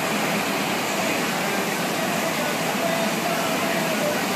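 Steady rush of pumped water from a surf simulator's standing sheet wave, pouring continuously up and over the ride surface at an even level.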